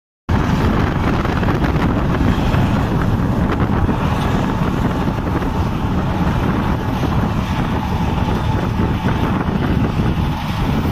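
A Swaraj 855 tractor and the PTO-driven Gurbaz straw reaper it pulls run steadily in a harvested wheat field, with a faint steady whine. Heavy wind noise on the microphone lies over it.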